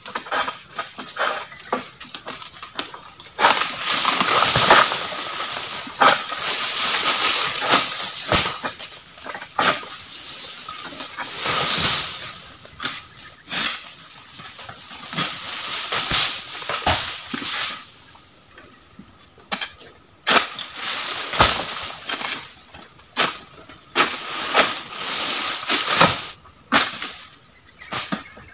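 Insects drone steadily at one high pitch, while a long-pole sickle (egrek) knocks and scrapes at an oil palm's crown in many short, sharp strikes, with a few longer bursts of rustling as it cuts at the fronds.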